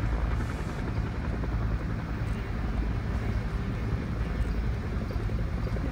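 Twin jet engines of a Navy F/A-18 Hornet idling on the ramp: a steady low rumble.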